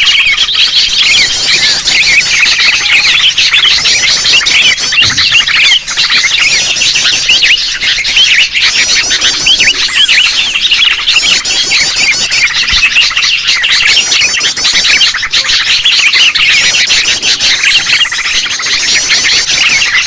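Loud, dense chorus of sooty-headed bulbuls (kutilang) chattering and calling over one another without pause, a busy flock recording used as a bird-trapping lure.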